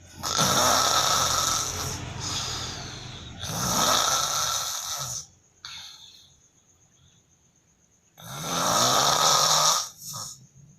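A man snoring loudly in his sleep, a deep snore that sounds like a lion's roar. Two long snores come back to back, then a pause of about three seconds, then another long snore and a short one at the end.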